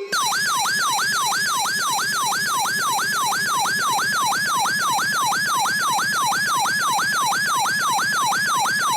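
Electronic alert siren sounding as a warning comes in: a rapid wail of quick sweeps that jump up and glide down in pitch, about three a second, at a steady loudness. It announces a tornado warning.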